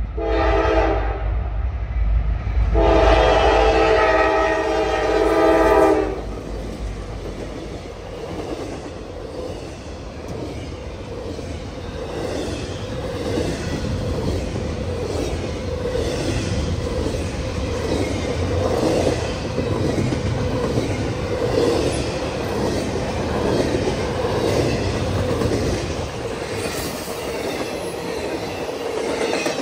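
Freight locomotive's multi-chime air horn sounds a short blast and then a long one, the closing blasts of a grade-crossing warning, over the deep rumble of the diesel engines. The intermodal train's double-stack and trailer cars then roll past with a steady rumble and a regular clickety-clack of wheels over rail joints.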